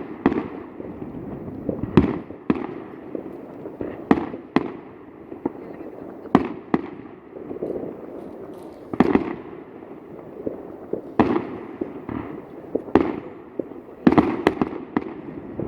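Fireworks display: aerial shells bursting with sharp bangs every second or two, some coming in quick pairs.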